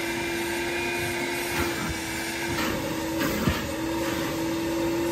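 RIDGID wet/dry shop vacuum running with a steady hum and hiss, its hose nozzle sucking over marine carpet. The pitch wavers briefly a few times as the nozzle moves across the carpet.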